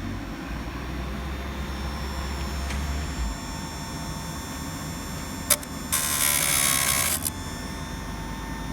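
Electric chainsaw chain sharpener: a sharp click about five and a half seconds in, then the grinding wheel is brought down on a cutter tooth for about a second, a loud rasping grind. The motor's whine dips under the load and picks back up when the wheel lifts.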